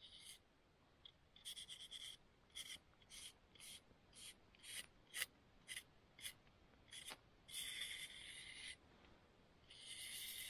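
Knife whittling a wooden stick: a run of short scraping cuts about every half second, then two longer drawn-out strokes near the end.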